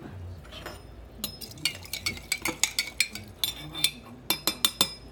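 Metal spoon stirring green lentils soaking in water in a glass Kerr quart jar, clinking against the glass. The chinks start about a second in and come in a quick, irregular run.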